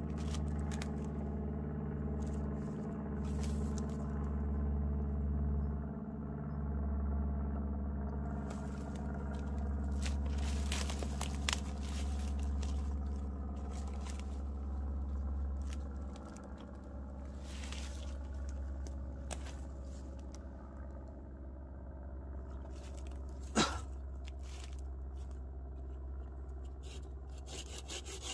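A steady low engine drone runs underneath the scraping, crunching and knocking of a dry log and sticks being handled and set in place on a forked support, with one sharp knock a little before the end. Right at the end a hand saw starts cutting the log with even strokes.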